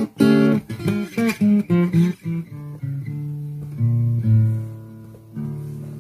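Acoustic guitar played slide-style and fingerpicked, a blues in D minor. A quick run of picked notes gives way to longer held bass notes left to ring.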